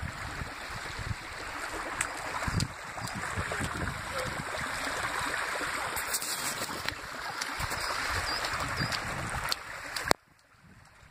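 Steady rush of a shallow stream running over flat rock, with a few sharp knocks. The rush cuts off abruptly near the end.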